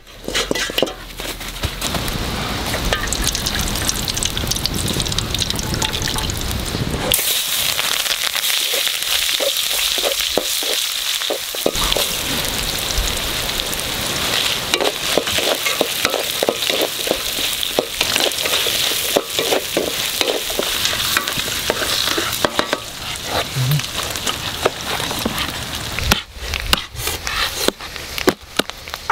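Sliced onion and whole spices sizzling in hot oil in an iron wok over a wood fire. The sizzle starts suddenly about seven seconds in, as the ingredients hit the hot oil, holds steady, and breaks off a few seconds before the end.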